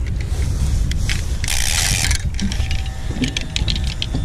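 Fishing reel being cranked to bring in a hooked fish, its gears giving a ratcheting click, with a run of quick clicks near the end. Steady wind rumble on the microphone underneath, and a brief rush of noise about a second and a half in.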